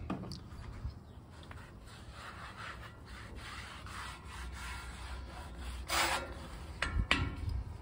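Cloth rag wiping cooking oil across a hot griddle top to season it, a steady rubbing with a few louder strokes near the end.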